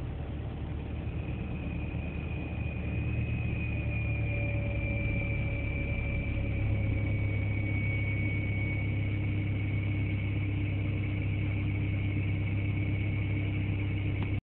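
Toyota Estima Hybrid AHR10W's transmission generator giving a high, thin whine, a "hii" likened to a sweet-potato vendor's whistle, slowly falling in pitch over a steady low vehicle hum. The owner takes the whine for an abnormal noise from the generator inside the transaxle.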